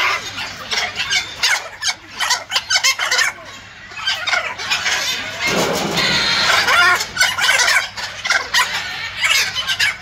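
Blue-and-gold macaws calling: a string of short squawks, with a longer, louder call about five and a half seconds in.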